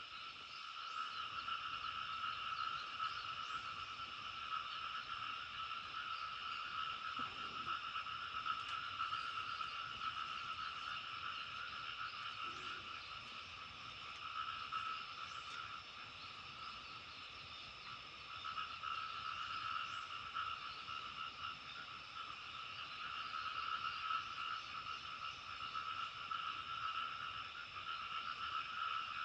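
Chorus of many frogs calling together in a dense, continuous din of overlapping croaks, steady throughout.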